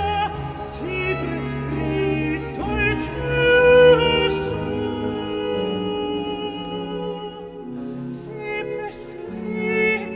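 Countertenor singing a Baroque aria in long held notes with vibrato, accompanied by a bowed string ensemble with a cello bass line.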